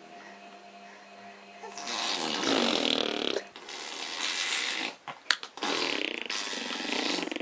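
Baby making loud, rough, spluttering noises with his mouth and breath, like blowing raspberries, in several bursts starting about two seconds in.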